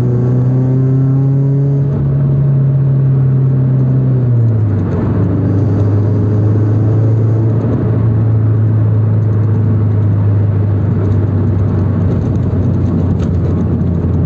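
Toyota 86's flat-four engine droning steadily under way, heard from inside the cabin over tyre and road noise. Its pitch steps down about four and a half seconds in as the revs drop, then holds.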